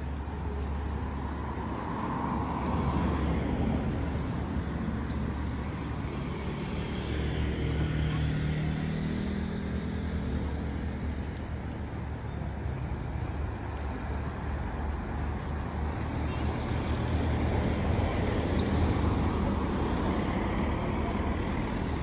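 Road traffic going by: several cars passing one after another over a steady low rumble, swelling and fading as each goes past.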